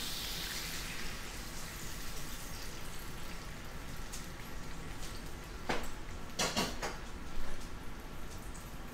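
Hot cast-iron skillet sizzling and crackling steadily as heavy cream goes into the whiskey-and-pepper pan sauce. A few short knocks come past the middle.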